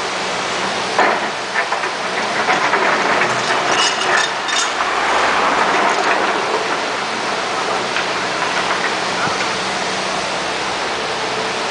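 Hitachi Zaxis 250 LCN excavator's diesel engine running steadily as it digs, with its steel bucket scraping and clattering through loose river stones; the clatter is busiest around four to five seconds in.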